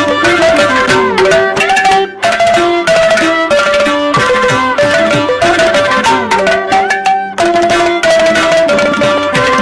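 Background instrumental music with fast hand-drum strokes under a melody that slides between notes, with a brief break about two seconds in and again about seven seconds in.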